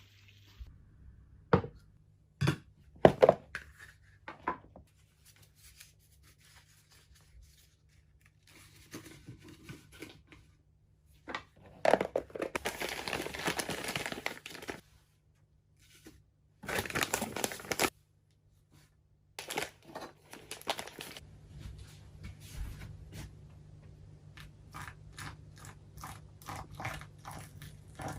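Hand-making coffee: a few sharp knocks and clicks, then stretches of tearing and crinkling packaging, and a run of small rapid ticks and rustles in the second half.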